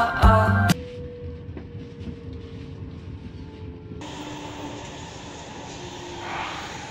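Stockholm commuter train running, heard from inside the carriage: a steady rumble of wheels on rail with a faint whine that slowly falls in pitch. About four seconds in, the sound turns abruptly brighter and hissier. A music jingle ends just under a second in.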